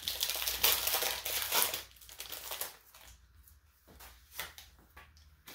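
Trading-card booster pack wrapper being torn open and crinkled, a dense crackling for about two seconds, then a few soft rustles and clicks as the cards come out.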